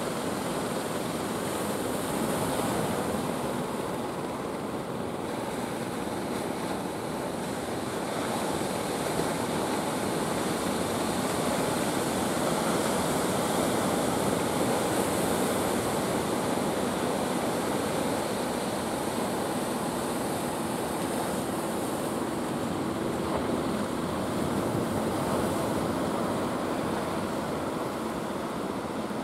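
Ocean surf breaking and washing, a steady rushing noise.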